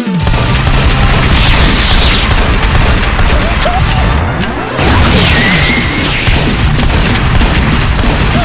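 Loud action soundtrack music with a heavy low beat, mixed with booming, crashing sound effects.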